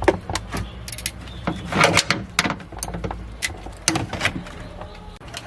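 A string of irregular knocks and clicks over a low steady hum, thinning out near the end.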